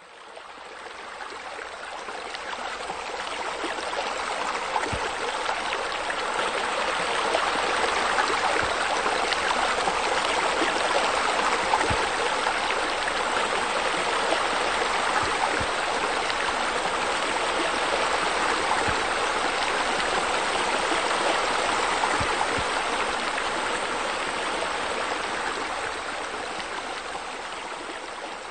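Steady running, splashing water from a pool's waterfall feature, fading in over the first few seconds and easing off near the end.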